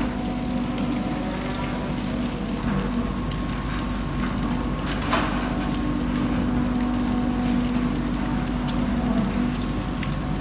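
Dairy cows eating feed at the feed barrier: a steady crackling, crunching noise over a steady low hum, with a single sharp knock about five seconds in.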